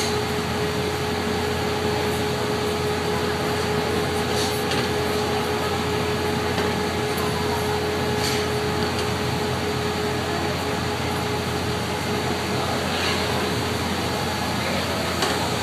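Steady noise of a traditional glassblowing furnace and its blowers running, with a steady hum that drops out about fourteen seconds in.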